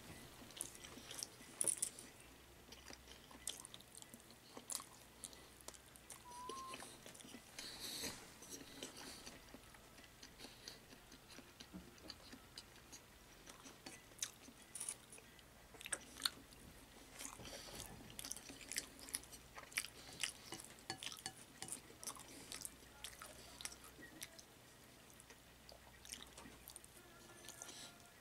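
Faint, close chewing of a person eating salad, with scattered light clicks of chopsticks against the bowl.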